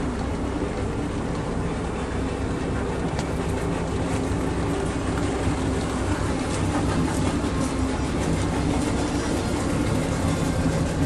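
A boat engine idling: a steady low drone with a slightly wavering hum, from a 1990 Bimini 29 sportfisherman at the dock.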